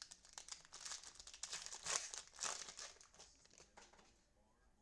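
Plastic trading-card pack wrapper crinkling as it is handled and opened, a dense crackle that peaks about halfway through and dies away near the end.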